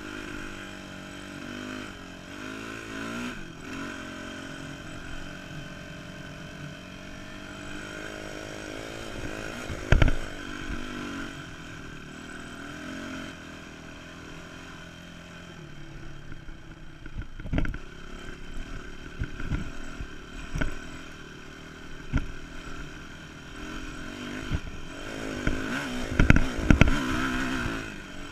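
Dirt bike engine running under way, its pitch rising and falling with the throttle. Sharp thumps break through about ten seconds in, and more come in the second half, louder near the end.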